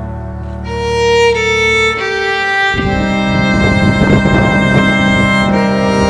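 Background music: a slow melody of held notes over sustained low tones, with a new low note and a fuller texture coming in about three seconds in.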